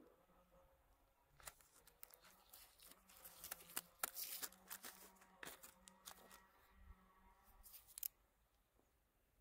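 Faint crinkling and rustling of plastic wrap and paper, with scattered small clicks and taps, as TP2L flash firecrackers are handled and pulled from their wrapped box; the handling noise fades out about eight seconds in.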